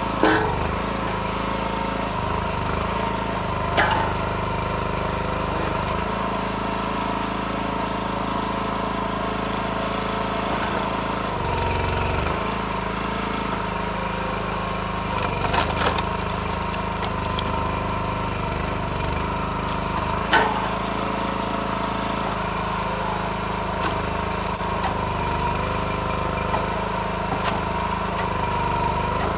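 Timberwolf TW-5 log splitter's gas engine running steadily, with a few sharp knocks from the wood now and then.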